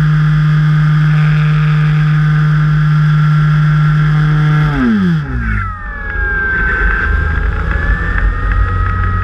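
E-flite Carbon-Z Cub's electric motor and propeller running at a steady high pitch; about five seconds in the throttle is cut and the pitch falls away over about a second. After that, wind rushes over the airframe with a fainter tone that wavers up and down.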